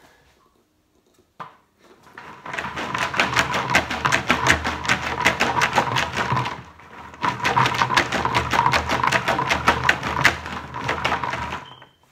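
Loose coins rattling and clinking inside a large plastic water jug as it is shaken, in two spells of about four seconds each with a brief pause between.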